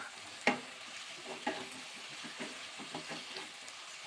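Wooden spatula stirring and scraping tomatoes, green peas and onion masala in a non-stick kadai, with repeated short scrapes over a steady sizzle of frying in oil.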